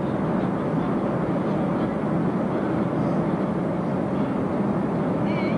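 Steady in-flight cabin noise of a Boeing 737, the engine and airflow rumble heard from inside the passenger cabin, even and unchanging.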